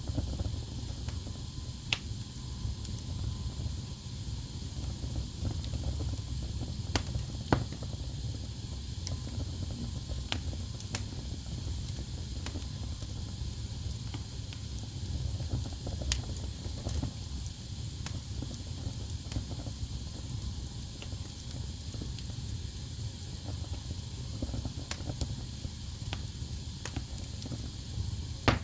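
Wood fire burning in a fireplace: a steady low rumble and hiss with irregular sharp crackles and pops, a few of them louder snaps.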